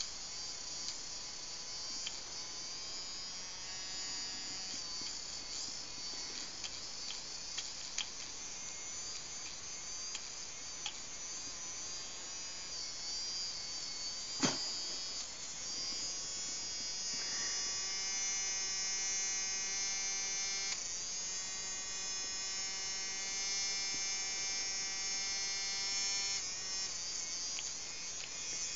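Electric rotary pet nail trimmer running, a steady high buzzing whine from its small motor. About halfway through there is a single sharp click, and after that the whine becomes clearer and slightly louder.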